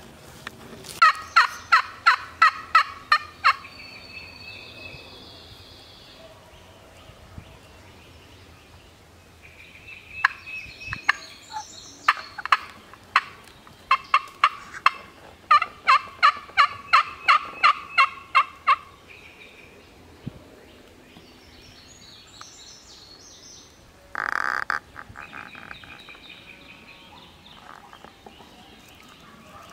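Runs of hen turkey yelps played on a hunter's hand-held turkey call: three series of evenly spaced, raspy notes at about three a second, loud and close.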